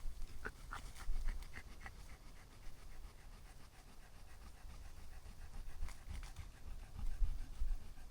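Dog panting quickly, about four pants a second and loudest in the first couple of seconds, cooling off in the heat, over a low rumble on the microphone.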